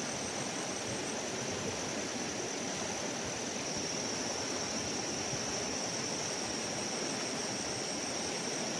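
Fast, rain-swollen river rushing past the bank: a steady, even wash of water noise, with a thin steady high-pitched tone above it.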